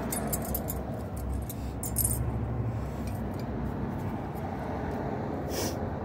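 Light metallic clicks and clinks of small brake-pad hardware clips being handled, mostly in the first two seconds, with one more click near the end. A brief low hum sounds about two seconds in.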